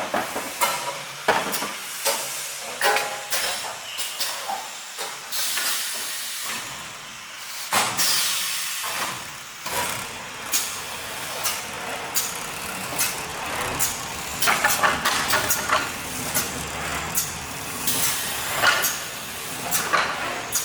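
DBQG 1500 CNC paper core cutting machine running automatically: a stream of sharp mechanical clicks and knocks, with bursts of air hiss from its pneumatics, over a steady machine hum.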